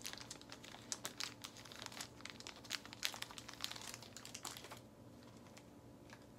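Small clear plastic zip bag crinkling and rustling as it is handled, in a run of quick crackles that thins out about five seconds in.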